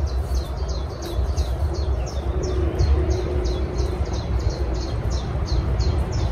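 A bird calling over and over, short high notes that fall in pitch, about three a second, over a steady low rumble on the microphone.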